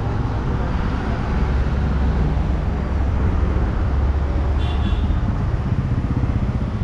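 Street ambience of motor traffic, cars and motorcycles running past with a steady low rumble.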